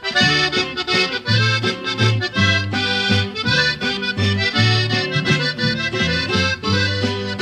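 Norteño accordion music: the instrumental opening of a song, with accordion melody over a bass line that bounces about twice a second.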